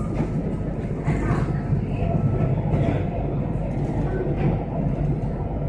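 Chennai Metro train running along an elevated track, heard from inside the carriage as a steady low rumble.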